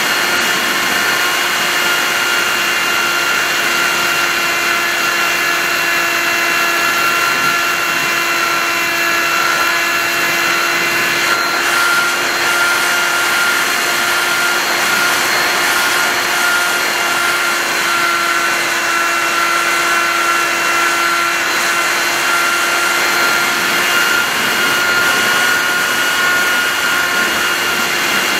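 Radio-controlled TBRC Reflex 38 model plane heard from its onboard camera in flight: the motor and propeller whine steadily under a heavy rush of wind over the microphone. The whine's pitch shifts slightly about twelve seconds in and again near twenty-four seconds.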